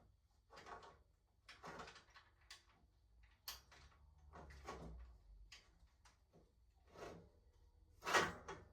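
A series of irregular knocks and clatters, like objects being picked up and set down, with the loudest bang near the end.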